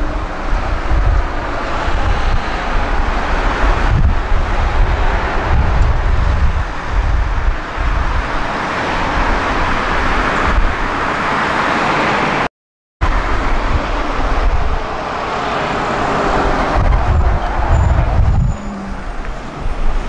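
Heavy wind buffeting on an unshielded microphone over passing street traffic, with an articulated city bus and cars driving by. The sound cuts out for a moment a little past halfway, then the wind and traffic go on.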